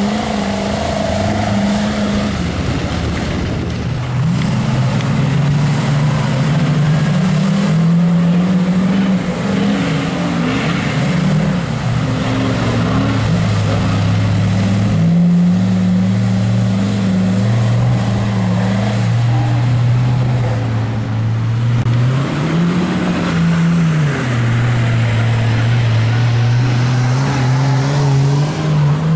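Engines of lifted mud-bog trucks running hard under throttle through a mud pit. The engine note holds steady for a few seconds at a time, then steps up or down in pitch. About 22 seconds in it rises and falls once.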